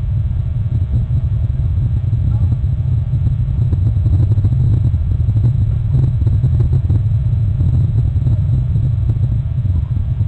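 Steady low rumble of wind buffeting an outdoor nest-camera microphone.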